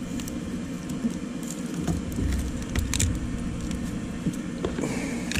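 Cut-out disc of plastic hull being prised off the foam block glued beneath it, the foam crackling and tearing away in scattered sharp clicks.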